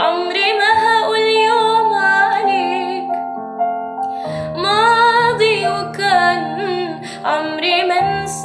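A woman singing with wavering, sustained notes over steady instrumental chords, her voice breaking off for about a second a few seconds in before picking up again.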